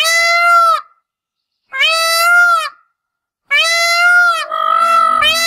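Indian peafowl (peacock) giving loud, high, wailing calls: three long drawn-out calls with short silent gaps, then a steadier call and a quick run of shorter ones near the end.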